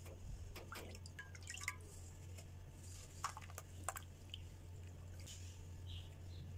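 Hands dunking, squeezing and crumbling a ball of sand in a metal pot of water: small splashes and drips, coming in two clusters about a second in and again around three to four seconds. A steady low hum lies underneath.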